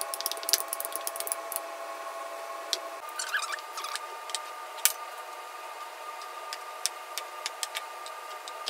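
Sharp clicks and light taps of a rolling pin, then a cutting wheel, working a sheet of dough on a wooden cutting board. A faint steady hum runs underneath and changes pitch about three seconds in.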